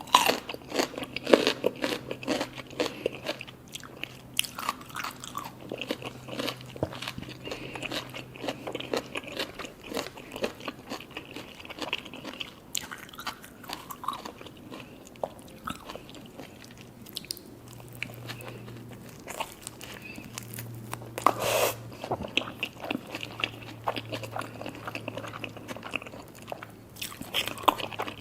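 Close-up eating sounds: nori-wrapped sushi cones being bitten into and chewed, a steady run of irregular crisp crunches, with a louder crunch about three-quarters of the way through.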